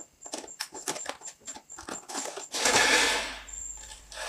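Cardboard packaging of a toy box being opened and handled: a run of small clicks and scrapes, then a louder rustling scrape of cardboard sliding about two seconds in.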